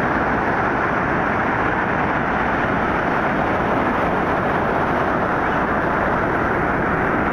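Steady rush of breaking surf mixed with wind buffeting the microphone.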